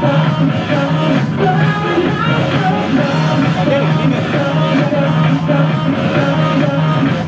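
Loud dance music with a singing voice, played steadily over a hall's sound system.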